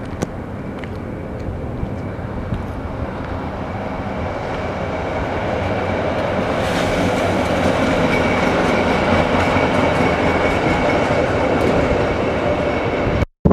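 A train running past, its rumble growing steadily louder with a thin steady whine over it in the second half.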